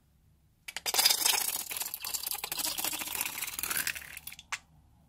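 Goo and trapped air spluttering out of the neck of a squeezed rubber balloon into a bowl: a dense crackling hiss of rapid pops lasting about three and a half seconds, fading out and followed by a single click.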